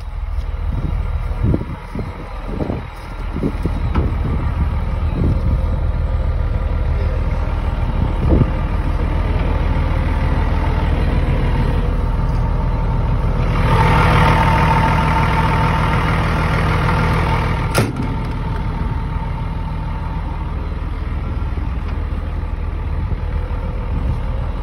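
Hitachi EX300 hydraulic excavator's diesel engine running steadily. For about four seconds in the middle it grows louder, with a higher whine over the engine note, which cuts off at a sharp click.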